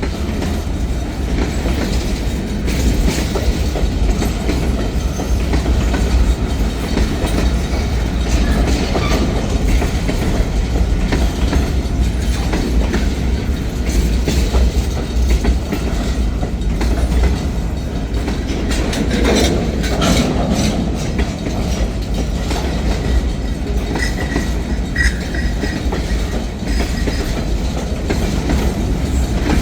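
Train cars rolling past close by, wheels clicking over the rail joints in a steady loud stream, with a few brief high wheel squeals late on as the train takes the curve.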